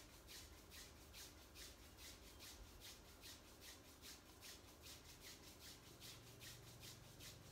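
Faint, rhythmic rubbing of a palm up and down the back of the opposite wrist and forearm, skin on skin, about three strokes a second.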